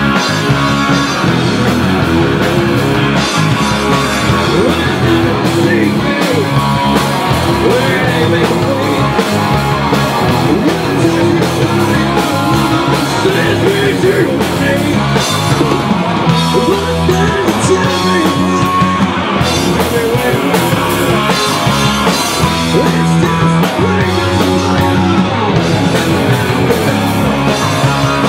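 Rock band playing loud and unbroken: Les Paul electric guitar, bass guitar and a Pearl drum kit, with lead vocals sung into the microphone.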